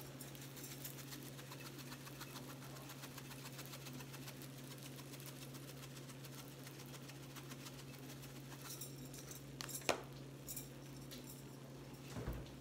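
Pork chops sizzling faintly on a flat grill, a fine steady crackle over a low hum, with a sharp click near ten seconds and a soft knock near the end.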